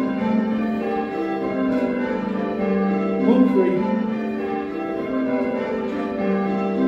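A ring of six church bells, a 1978 Whitechapel six with the tenor in G, being rung full circle by hand in call changes. The bells strike one after another in steady succession, each ringing on into the next, heard from the ringing chamber below.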